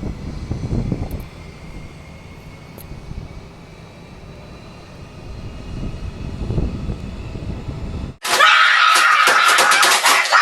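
A steady low engine-like rumble, then an abrupt cut about eight seconds in to a loud, harsh, bright sound.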